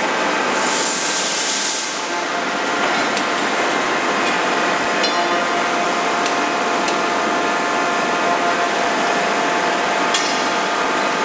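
Steady din of forging-line machinery with several steady hums, a short hiss of air in the first two seconds and a few faint knocks.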